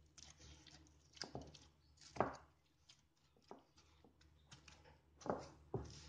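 Hands kneading ghee-greased paratha dough in a glass bowl: faint, irregular squishes and soft thumps as the dough is pressed and folded against the bowl, the loudest about two seconds in.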